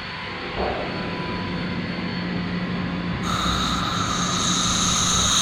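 CompAir L11 rotary screw compressor running with a steady hum; about three seconds in, a loud hiss of compressed air starts as an air outlet is opened and air blows out.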